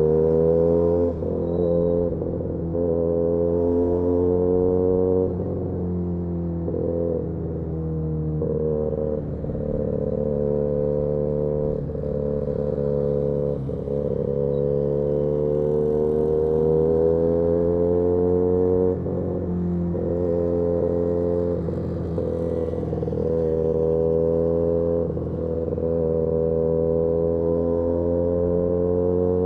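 Benelli 302S's parallel-twin engine running through an aftermarket titanium exhaust under way. Its pitch climbs gently under throttle and drops briefly several times as the throttle closes.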